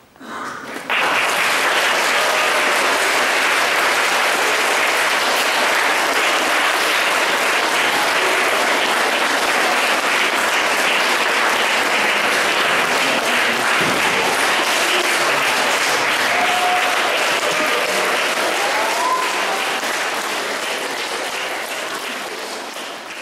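Audience applauding: the clapping starts abruptly about a second in, holds steady, and tapers off near the end.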